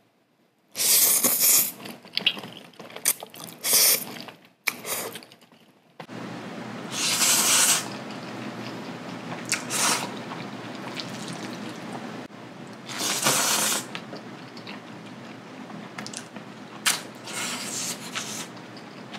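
Close-miked eating of saucy black-bean-sauce instant noodles: several loud wet slurps, the longest about a second, around 1, 4, 7 and 13 seconds in, with wet chewing and mouth sounds between them.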